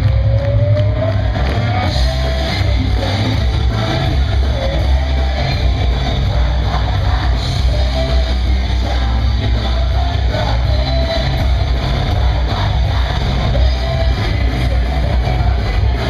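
Rock music with a singing voice over heavy, steady bass and drums.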